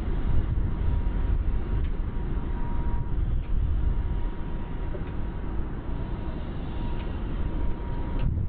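Steady low machinery rumble with a thin, steady whine above it and a few faint ticks.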